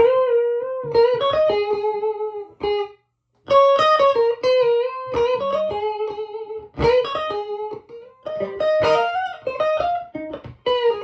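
Electric guitar played through a Victoria 35310 tweed amp, a Fender 5E7 Bandmaster clone with three Jensen P10R 10-inch speakers. It plays single-note lead phrases, with a brief pause about three seconds in.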